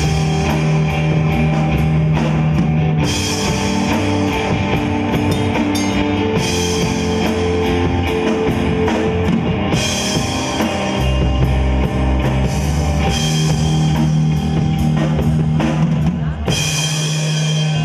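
Rock band playing live: electric bass holding low notes under electric guitar and a drum kit, with cymbals crashing in and dropping out every few seconds.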